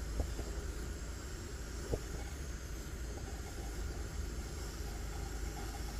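British No. 6 military pressure stove's burner running with a steady roar, with two light knocks, one just after the start and one about two seconds in.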